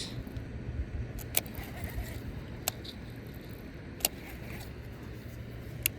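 Baitcasting reel's brake being adjusted: four sharp, separate clicks a second or more apart, over a low steady rumble.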